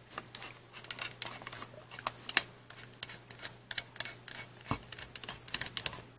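Hand rivet-nut (captive nut) tool being unscrewed from a freshly set captive nut in an aluminium plate: a run of light, irregular metal clicks and ticks from the tool's threaded mandrel and handles, with one louder knock about three-quarters of the way through.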